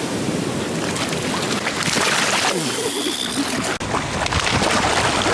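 Surf washing on the shore with wind rushing over the microphone, a steady noise throughout.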